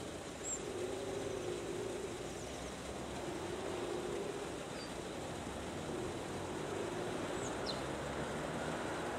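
Outdoor ambience: a steady hum of distant traffic, with a few brief, faint, high bird chirps.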